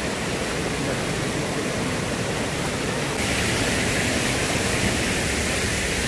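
Waterfall: a steady rush of falling water. About three seconds in it becomes a little brighter and louder.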